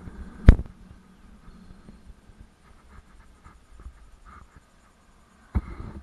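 Salsa Timberjack mountain bike jolting over the trail: a sharp knock about half a second in and another near the end, with faint scratchy rattles in between.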